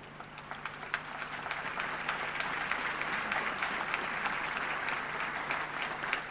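Large crowd applauding; the clapping swells over the first two seconds, then holds steady.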